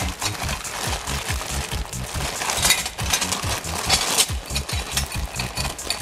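Clear plastic wrapping crinkling and the metal rods of a boxed overlock thread stand clinking together as the bundle is turned over in the hands, in irregular rustles and clicks. A steady bass line of background music runs underneath.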